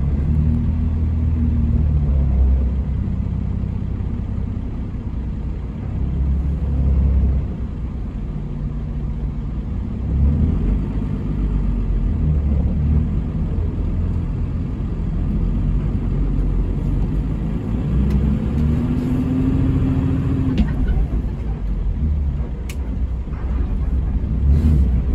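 Hino RG230K coach heard from inside the passenger cabin: a steady low engine rumble mixed with road noise. The engine note rises and falls as the bus speeds up and slows, with one clearly rising note a few seconds before the end and a couple of sharp clicks near the end.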